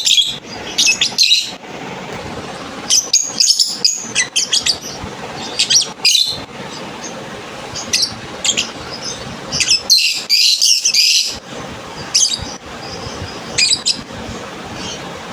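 Lovebirds chirping in short, rapid, high-pitched bursts that come and go every second or two, with the densest, loudest burst about two-thirds of the way through. Pet lovebirds are calling back to recorded calls of their own kind played from a mobile phone.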